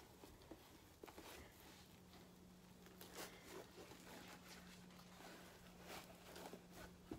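Near silence: faint scattered rustles and light ticks of gloved hands handling and tilting a wet painted canvas, with a faint steady low hum from about two seconds in.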